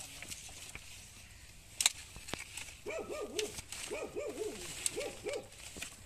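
Dry branches crackling underfoot, with one sharp snap about two seconds in. From about three seconds, a bird, likely a dove, cooing in a run of soft rising-and-falling notes, about three a second in short groups.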